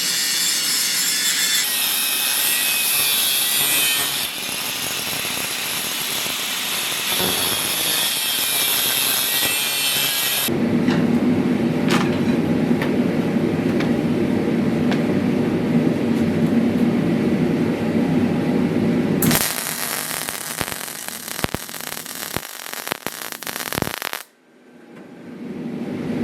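Workshop tool noise from steel being worked. A rasping, sawing sound runs for about ten seconds, then a lower steady drone for about nine seconds, then scattered sharp taps.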